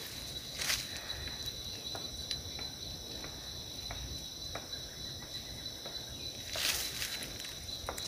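A steady high-pitched insect chorus, with a couple of brief rustles, one about a second in and one near the end.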